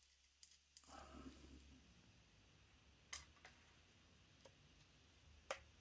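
Near silence with a few faint clicks, the clearest about three seconds in and near the end: a screwdriver starting a screw into a polymer airsoft pistol grip.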